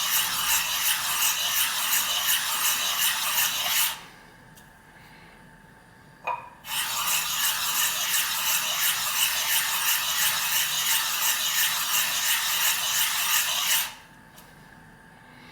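The 3000-grit side of a Suehiro SKG-38 waterstone being rubbed back and forth on a lapping plate with quick, even strokes, giving a gritty rasping. This is the stone being flattened with almost no pressure. The rubbing stops about four seconds in, a single click comes a little after six seconds, and then it resumes for about seven seconds before stopping again near the end.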